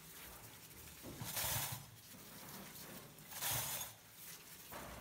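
Hand-held sink spray head spraying water over a rack of stainless-steel spoons and forks, in two short bursts about a second in and again past three seconds in.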